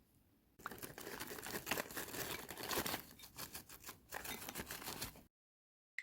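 Dense crinkling and crackling from ingredients or packaging being handled during food preparation, full of small clicks. It starts about half a second in, stops abruptly about a second before the end, and a single short click follows.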